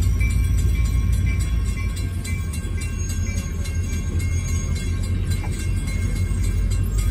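Passenger coaches of a steam excursion train rolling past on steel wheels: a steady low rumble with a running clatter of clicks from the wheels on the rails.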